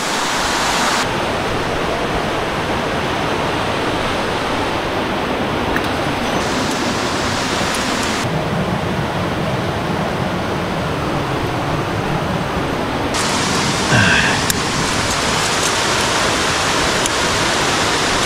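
Steady rush of a mountain stream and its waterfalls, its hiss brightening and dulling abruptly a few times. About fourteen seconds in there is a brief call.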